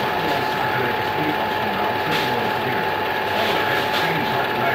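Film projector running: a steady mechanical clatter with a constant high whine under it.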